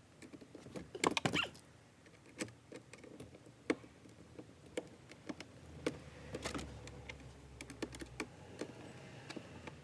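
Irregular plastic clicks and taps as car glove-box and dashboard trim pieces are handled and fitted back together, with a low rumble in the middle that fades out.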